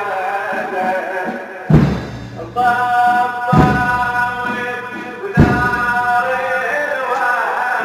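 A man's voice chanting a Muharram lament over loudspeakers, held on long notes. Three heavy thuds fall about two seconds apart, keeping a steady beat under the chant.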